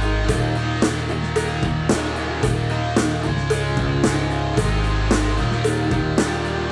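Instrumental rock music with guitar, sustained bass notes and a steady drum beat of about two hits a second, played back through JBL LSR305 studio monitor speakers.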